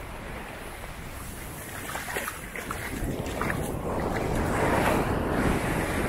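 Sea surf washing up the beach, with wind on the microphone; the wash of noise swells louder through the second half.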